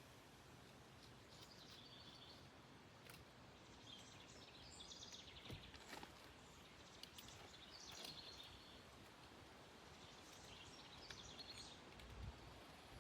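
Near silence, with faint high bird chirps every few seconds and a few soft clicks.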